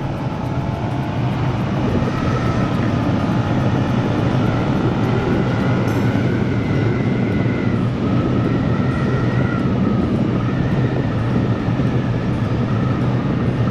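Motor scooter riding at road speed: wind rushing over the microphone with the steady drone of the engine, and a thin whine that rises and falls.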